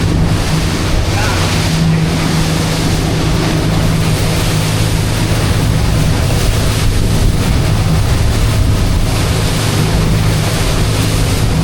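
Motorboat engine running steadily at speed, with water rushing past the hull and wind buffeting the microphone.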